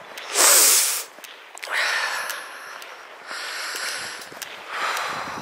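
A loud nasal sniff close to the microphone about half a second in, followed by three quieter breaths from the person holding the camera as she walks.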